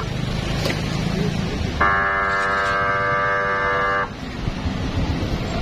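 A vehicle horn sounds one steady blast of about two seconds, starting about two seconds in, over the low rumble of vehicle engines on the ferry deck.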